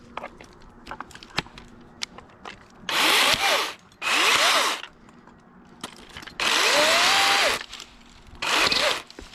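Dewalt 60V 14-inch top-handle battery chainsaw cutting pine limbs in four short bursts. The motor's whine rises as the trigger is squeezed and falls as it is let go, and the longest burst, about a second long, comes past the middle.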